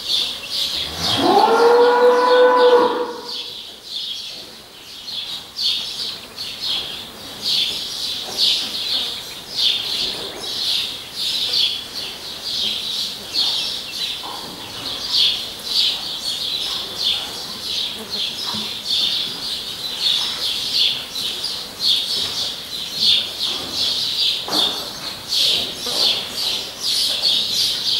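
A cow moos once, loudly, about a second in, the call rising in pitch and then held for about two seconds. Under it runs a continuous high, pulsing chirr.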